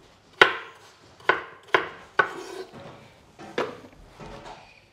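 Kitchen knife cutting a peeled potato into cubes on a wooden chopping board: about five sharp chops at uneven intervals.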